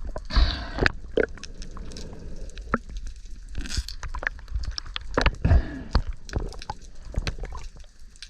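Underwater noise picked up by a GoPro in its waterproof housing: irregular clicks and crackles, with a few short rushes of water or bubbles.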